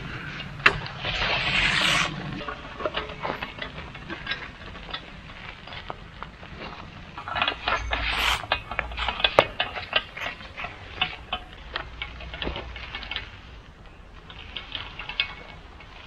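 Concrete texture rollers (a slate and a stone texture roller on long handles) being pushed back and forth over a fresh concrete slab, their frames and handles clicking and rattling, with two longer scraping passes, about a second in and around eight seconds in.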